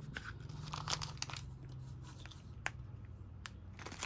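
Light crinkling of a clear plastic wrapper around a small toy being handled, with a few sharp clicks of hard plastic, as the toy is taken out of a plastic chocolate cup.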